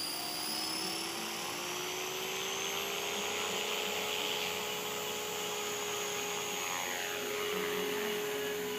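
Miniature Aircraft Furion 450 electric RC helicopter on a 6S battery spooling up: motor and rotor whine rising in pitch over the first few seconds, then holding steady at head speed.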